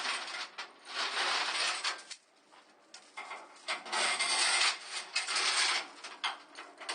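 Heavy steel load-restraint chain being handled and dragged, its links clinking and scraping in several bursts, with a short pause a couple of seconds in.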